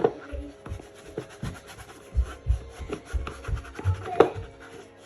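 Rubbing and scrubbing while motorcycle plastic covers are cleaned, with irregular knocks and low thuds from handling the parts; the sharpest knocks come at the start and about four seconds in.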